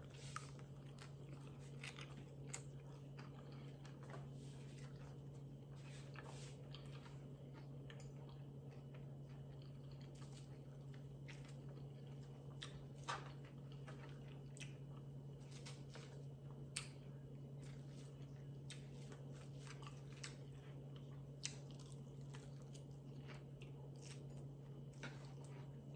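Chewing of a mouthful of lettuce salad, soft and crunchy, with a few short sharp clicks scattered through it. A steady low hum runs underneath.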